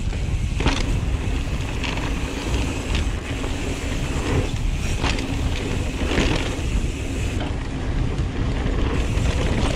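Wind buffeting the microphone of a camera on a mountain bike ridden fast down a dirt trail, over the steady rumble of the tyres on dirt. Short rattles and knocks from the bike come every second or so.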